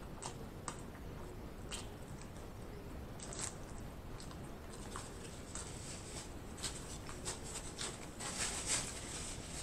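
Close-miked mouth sounds of a person chewing a mouthful of burger: soft wet smacks and clicks, sparse at first and growing busier and louder over the last few seconds.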